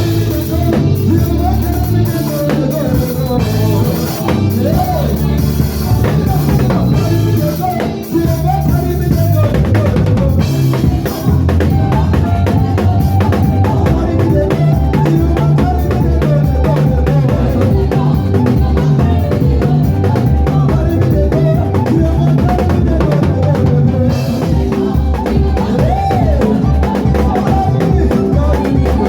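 Gospel band playing a praise and worship medley: a drum kit with kick, snare and rimshots drives it over a heavy bass line, with melodic lines above.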